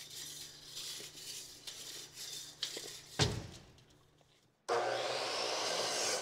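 Light scraping and handling of lumber with a thud about three seconds in, then a DeWalt miter saw starts abruptly near the end and runs, its whine falling in pitch as the blade winds down after the cut.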